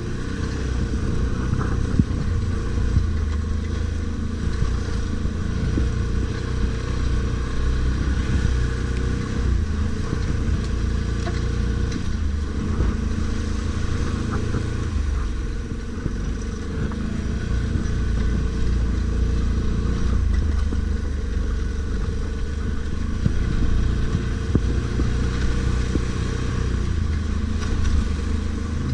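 ATV engine running while riding, its revs rising and falling, with the level dropping briefly about halfway through and picking up again.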